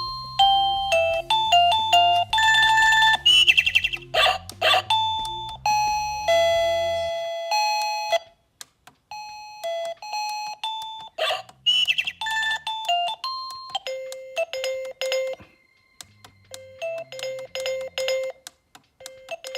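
SilkRd plug-in wireless doorbell receiver playing short snippets of its electronic chime melodies. Each tune is cut off and another starts as its buttons step through the ringtones and volume levels.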